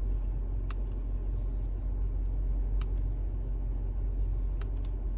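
Steady low rumble of a vehicle heard from inside the cabin, with a few faint, scattered clicks.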